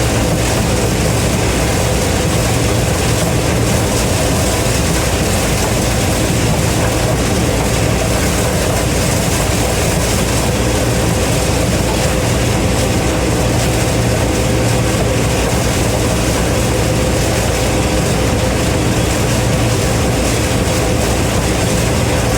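Gleaner M3 combine running steadily, its engine and harvesting drives making a constant loud hum with a steady whine over it.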